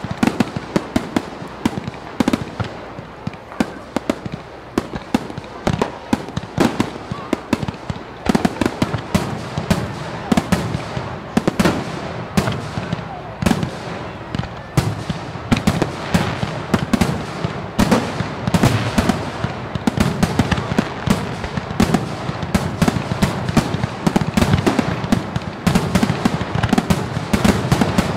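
Fireworks going off: a dense run of sharp bangs and crackles, several a second, with heavier low booms thickening in the second half.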